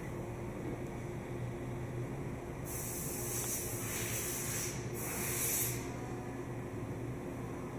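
Steady hum of powered machinery with a low drone. About three seconds in, a loud spraying hiss like escaping air starts, breaks off for a moment after two seconds, and runs about another second before stopping.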